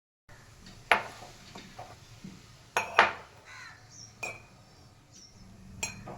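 Kitchen utensils and dishes clinking: about five sharp, separate knocks, two of them close together near the middle. Faint bird chirps are heard behind them in the second half.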